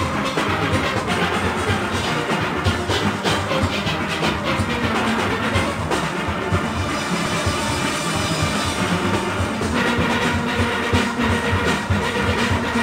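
Steel orchestra playing: massed steelpans carrying a fast calypso arrangement over drum kit and percussion with a steady driving beat.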